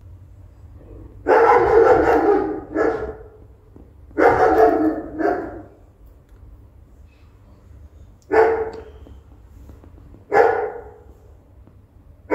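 Loud, rough animal calls in short bursts. There are two double calls in the first six seconds, then single calls about two seconds apart from about eight seconds in.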